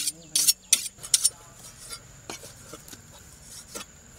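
Dishes or utensils being handled: a quick run of sharp clinks and knocks in the first second and a half, then a few fainter, more spaced-out knocks.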